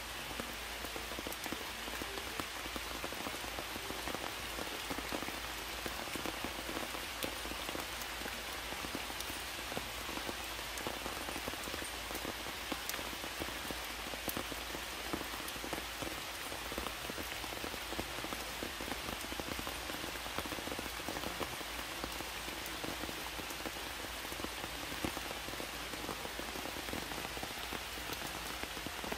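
Heavy rain falling steadily, a dense hiss of drops with many individual drops pattering on surfaces.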